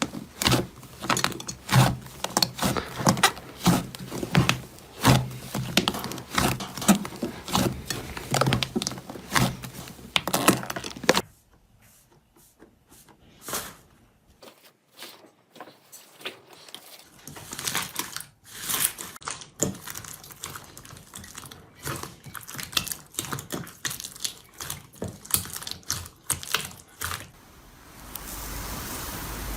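Slime being squeezed and poked by hand: rapid, sticky crackling and popping clicks. These stop at about eleven seconds, and after a few quiet seconds sparser clicks and pops resume.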